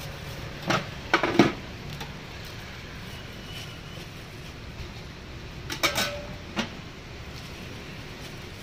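A knife cutting the rind off a pineapple held in the hand, heard as sharp clicks and knocks in two short clusters, about a second in and again around six seconds in, over a steady hum of street traffic.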